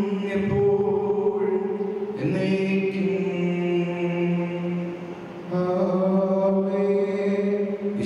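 Slow liturgical chant sung in long, held notes, about three notes of two to three seconds each with a short break about five seconds in.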